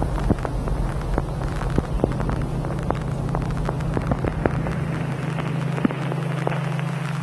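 Designed soundtrack of scattered sharp crackles and clicks over a steady low hum; the crackles come less often near the end.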